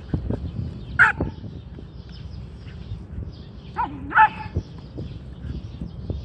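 Two dogs, a whippet and a black-and-white dog, play-fighting. One gives a sharp bark about a second in, and two more barks come close together around four seconds.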